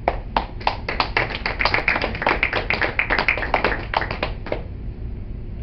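A small audience applauding, a few dozen separate hand claps that thin out and stop about four and a half seconds in.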